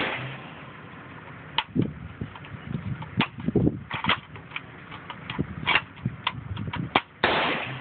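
Mosin-Nagant 91/30 bolt action being worked by hand: a string of sharp metal clicks and clacks as the sticky bolt is forced through its cycle after a shot. A shot's echo fades at the start, and a loud bang with a long fade comes near the end.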